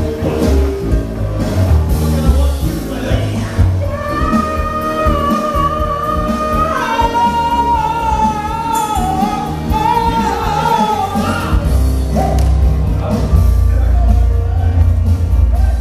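Live stage music from an upright piano and an acoustic guitar, with men singing over a heavy beat. Through the middle one voice holds a long high note, sliding down to a lower held note partway through.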